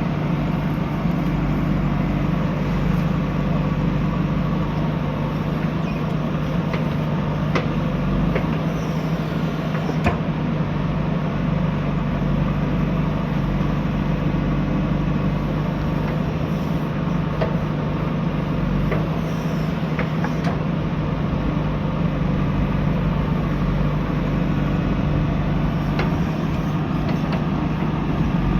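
JCB 3DX backhoe loader's diesel engine running steadily under work, with a few brief sharp knocks through it.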